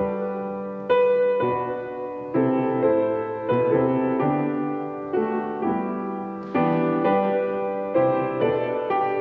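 Slow, gentle solo piano music. Chords are struck about once a second and left to die away.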